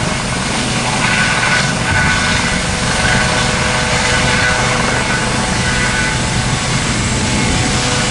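A large engine running steadily, with a continuous low hum.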